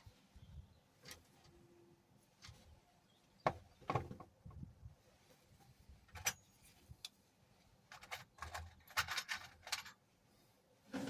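Scattered metallic clicks and knocks of small tools and fittings being handled, with a quick run of rattling clicks near the end.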